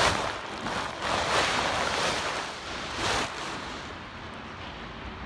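Rustling, wind-like noise on a covered microphone, with a few louder surges in the first three seconds. It becomes quieter and duller near the end.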